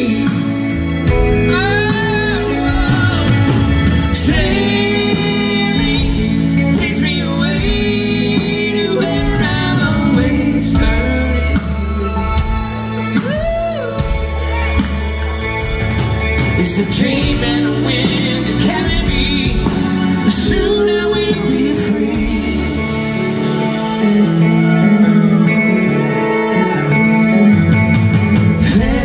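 Live band playing a soft-rock ballad with keyboards and guitar, a male lead vocal and women singing backing vocals, heard through the concert PA.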